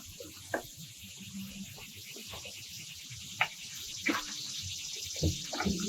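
Steady high-pitched chirring of summer insects, with a few short sharp clicks and knocks scattered through it, the loudest about three and a half seconds in.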